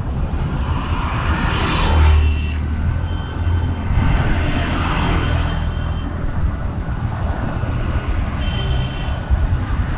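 Road traffic passing close by, a steady rumble that swells as vehicles go past about two seconds in and again around the middle, picked up by a GoPro Hero 11's built-in microphone.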